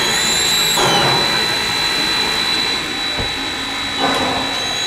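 Steam hissing steadily from a standing Baldwin 0-6-0 steam switcher, with a thin, high, steady whine running through it. The hiss swells briefly near the start and again about four seconds in.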